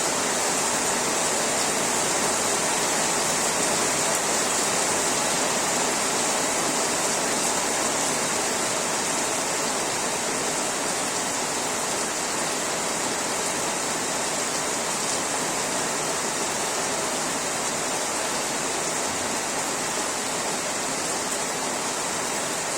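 Steady rain falling, an even unbroken hiss that holds the same level throughout.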